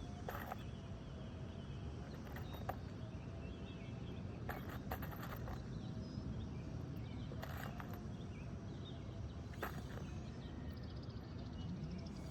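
Steady outdoor background noise with faint bird chirps and about six light knocks or clicks spread a couple of seconds apart.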